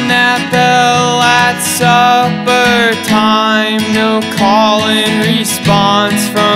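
Background music: a country-folk song with acoustic guitar and a sung melody.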